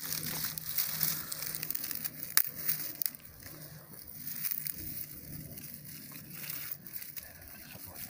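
Dry, brittle dead twigs being handled and pressed down onto a loose bundle of old man's beard lichen: crackling and rustling, busier in the first three seconds with one sharp click about two and a half seconds in, then lighter rustling.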